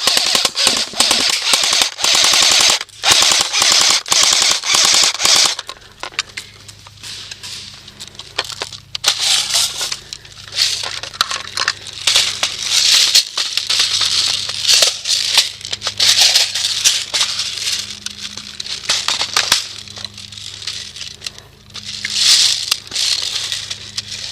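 Airsoft guns firing rapid full-auto bursts: a long run of closely spaced shots through the first five seconds or so, then shorter bursts on and off.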